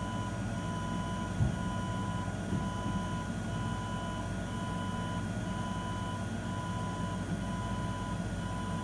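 Venus Bliss body-contouring machine running during treatment: a steady low hum with a repeating electronic beep tone that sounds for most of each second, broken by short gaps. A single brief knock about one and a half seconds in.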